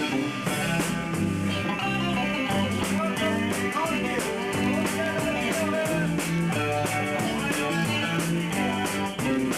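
A band playing a song: guitar over a bass line that moves between held notes, with drums keeping a steady beat.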